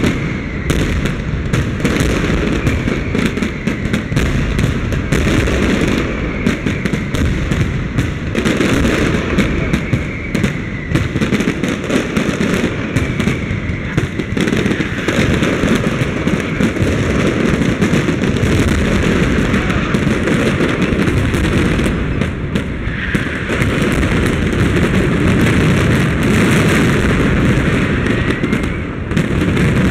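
Aerial fireworks display: a dense, unbroken barrage of shell bursts and crackling, with a few faint whistles rising through it.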